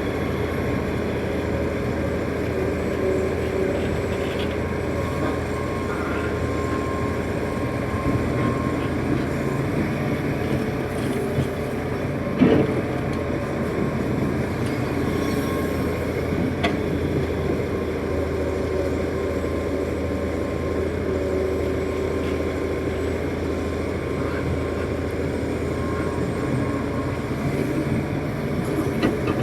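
Hitachi 330 excavator's diesel engine running steadily as it works, with a few sharp knocks, the loudest about halfway through.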